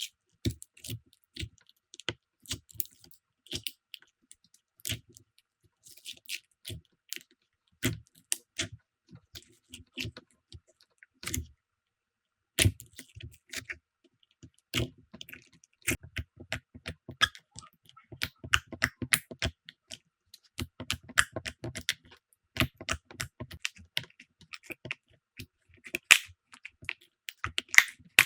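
Slime being squeezed and poked by hand, making irregular sticky clicks and crackles with short pauses between them.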